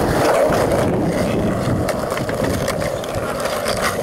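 Skateboard wheels rolling steadily over asphalt.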